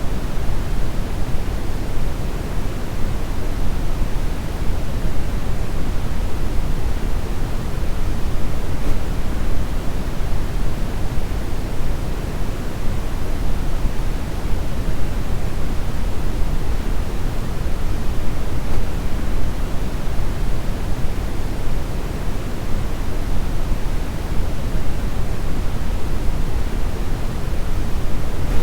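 Brown noise: a steady, unchanging noise, deepest and strongest in the low end and thinning toward the top, like a soft, even rumble.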